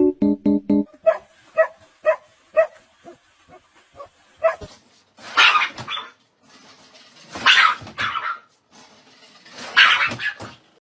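Dog barking: a run of short yips about twice a second, then three longer, louder barks spaced a couple of seconds apart.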